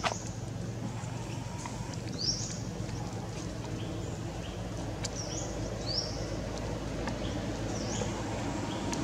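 Short, high chirping calls, about five of them a second or two apart, over a steady low outdoor rumble.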